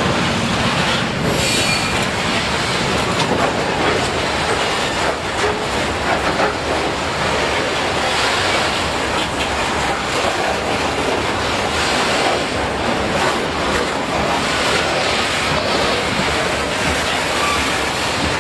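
Coal hopper wagons rolling past at close range: steady steel-wheel rumble on the rails with a rhythmic clicking of wheels over the track, and brief high wheel squeals about a second and a half in and near the end.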